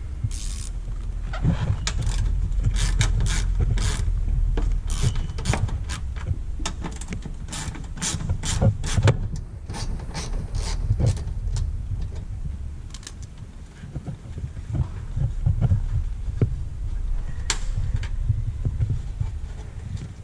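Hand ratchet with a 10 mm socket clicking in short irregular runs as bolts are loosened, over a low rumble.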